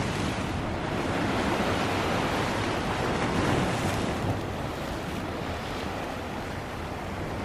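Sea waves breaking and washing over the boulders of a rock breakwater: a steady rushing of surf, easing slightly after about four seconds, with wind on the microphone.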